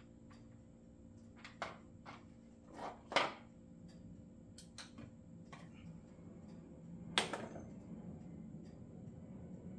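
Scattered light clicks and knocks of small chainsaw parts, screws and hand tools being handled during assembly, with louder knocks about three seconds in and about seven seconds in.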